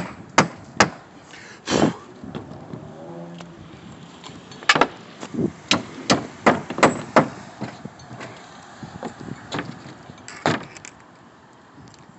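Irregular sharp knocks and bangs of carpentry on roof framing, wood being struck, with a quick run of about five strikes partway through.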